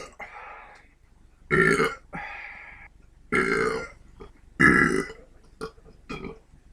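A person burping several times in a row: three loud belches about a second and a half apart, with softer, shorter burps after and between them.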